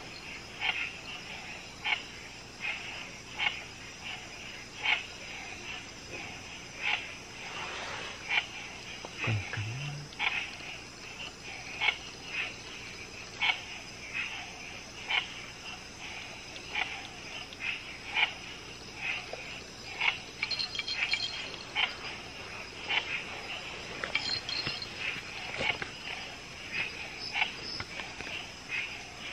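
Frogs calling at night, short sharp calls about once a second, over a steady high insect trill.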